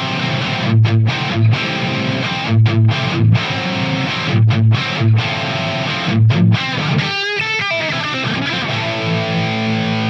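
Distorted electric guitar played through a guitar preamp pedal and cabinet simulator: a rhythm riff in short bursts with brief stops, a quick pitch slide about seven seconds in, then a held chord ringing near the end.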